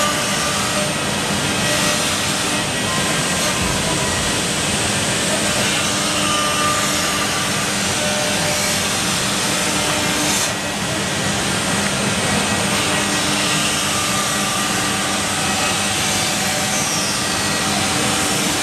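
CNC router spindle milling the edge of a wood panel: a steady high whine over dense, continuous cutting noise.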